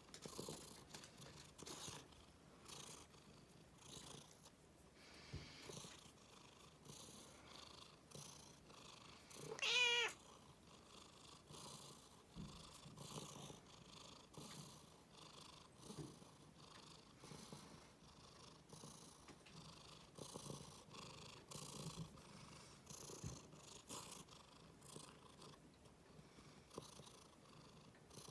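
Domestic cat purring in a soft pulsing rhythm, each breath in and out audible, while it is annoyed at being touched. About ten seconds in, the cat gives one short, loud cry.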